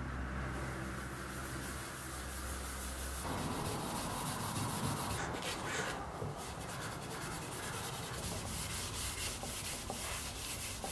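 A pad rubbing paste wax into the hardwood surface of a wooden serving tray: a steady, scratchy rubbing by hand.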